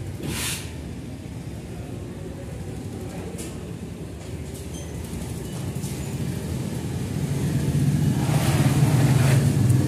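Low rumble of a road vehicle passing, swelling to its loudest near the end. A short hiss comes about half a second in.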